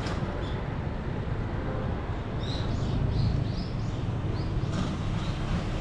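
Street ambience: a steady low rumble of traffic, with a bird chirping a quick run of about half a dozen short notes in the middle.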